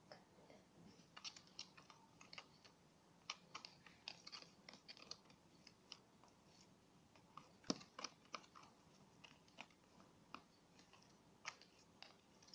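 Utensil stirring a slime mixture in a container, scraping and tapping against its sides in faint, irregular clicks.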